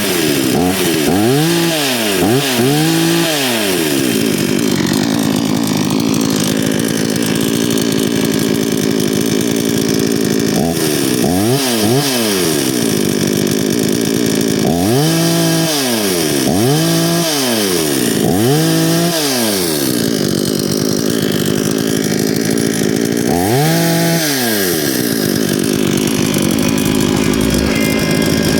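Parkside chainsaw running at high speed, its pitch dropping and climbing back about eight times as the throttle is let off and squeezed again, in clusters near the start, in the middle and once about 24 seconds in.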